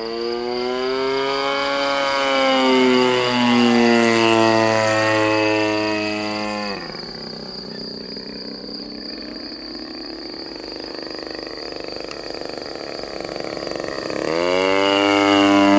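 RCGF 26cc single-cylinder two-stroke petrol engine of a model biplane running in flight, its pitch rising and falling. About seven seconds in it drops away to a faint low hum. About fourteen seconds in it comes back loud with a rising pitch.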